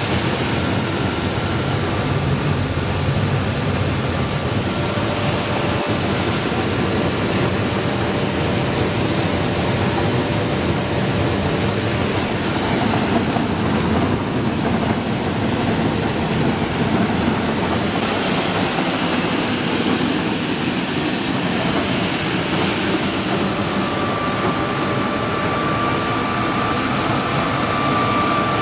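Small electric grain flour mill plant running, a loud steady mechanical noise. A faint whine comes up near the end.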